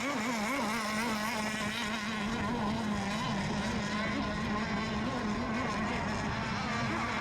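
Several radio-controlled racing boat engines running together at speed, a steady overlapping whine whose pitches waver up and down as the boats run the course.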